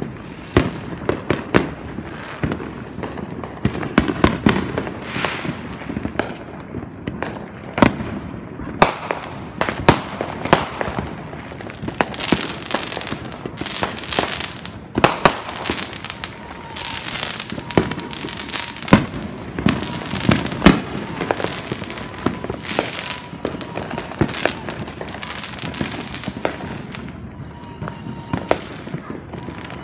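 Fireworks going off all around a neighbourhood: many sharp bangs at uneven intervals, with stretches of dense crackling, thickest through the middle.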